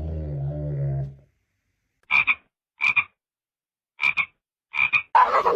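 A dog's low, drawn-out grumbling growl that stops about a second in. After a short gap come four short, raspy, croak-like calls about a second apart.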